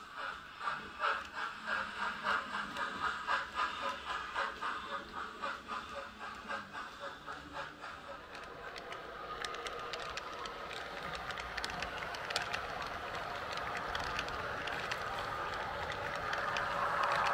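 H0 model train running past with an even rhythmic beat, about two to three a second, that fades away over the first half. Then the running sound of a Roco ICE Velaro model with a sound decoder: a steady whir with light clicks, growing louder as it approaches.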